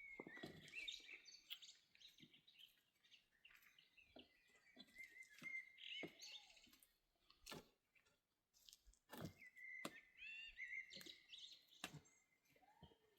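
Faint bird chirps, short rising and falling notes that come and go, with a few sharp knocks in between.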